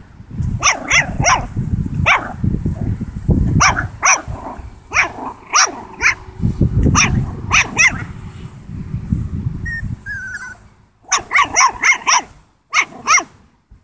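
Italian Greyhound puppy barking in short, high yaps, many in quick runs, in play. There is a brief pause about ten seconds in before a last flurry of yaps. A low rumble runs underneath for most of the first ten seconds.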